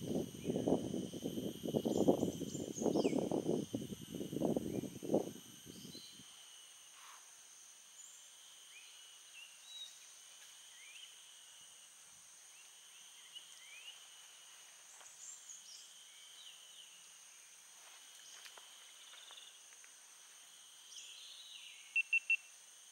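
Insects droning steadily in several high, unchanging tones, with scattered short bird chirps. For the first six seconds a louder irregular rumbling noise lies under them and then stops suddenly. Near the end come three quick high pips.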